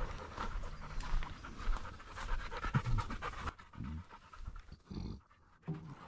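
A hunting dog panting in quick rough breaths, loudest for the first three seconds or so, then fainter.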